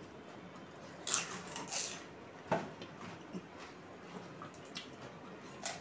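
Sounds of pani puri being eaten: a few short wet, crunchy bursts as the crisp puris are dipped in a steel bowl of spiced water and bitten, with quiet gaps between them.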